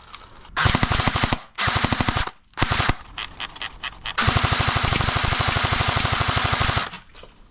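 Airsoft M4-style rifle firing on full auto: three short bursts in the first three seconds, then one long burst of nearly three seconds.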